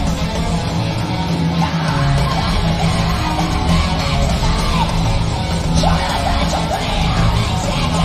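Live rock band playing loud, with electric guitars and drums, heard from within the audience in a concert hall.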